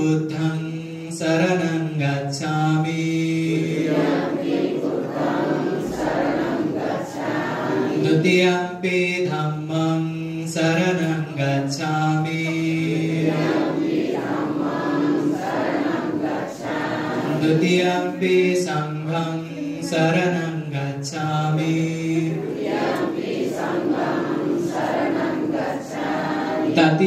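A group of voices chanting a Buddhist devotional chant in unison, the same short melodic phrase repeating about every nine seconds.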